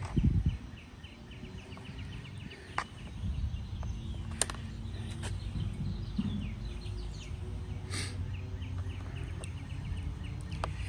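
A few sharp clicks and knocks of trimmer parts being handled and fitted together, the loudest about four seconds in. Behind them runs a rapid, even series of high chirps, about five a second, from a bird outdoors.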